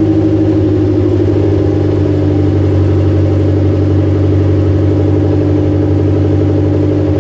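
Suzuki G16B 1.6-litre four-cylinder EFI engine running at a steady idle, with no revving.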